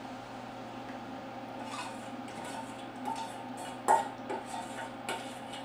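Metal kitchenware clinking and scraping at a stock pot as coconut milk is added: soft scrapes, then sharp clinks about four seconds in and again near the end, over a steady low hum.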